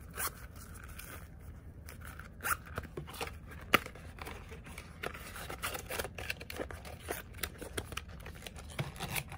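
Hands handling a small fabric zipper pouch and paperboard packaging: scattered scrapes, rustles and light clicks, with one sharper click a little under four seconds in.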